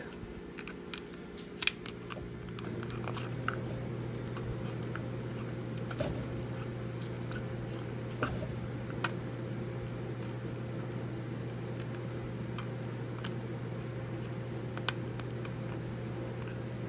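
Scattered small clicks and taps of fingers working panel-mount switches and their nuts into a plastic housing, over a steady low machine hum that starts about two seconds in.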